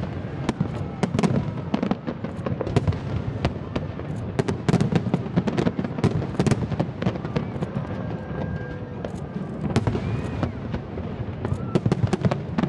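Fireworks going off in quick, irregular succession: many sharp bangs and crackles close together.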